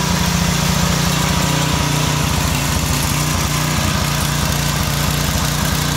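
Single-cylinder Briggs & Stratton engine on a Brute pressure washer running steadily at a constant speed, with vegetable oil in the crankcase instead of motor oil.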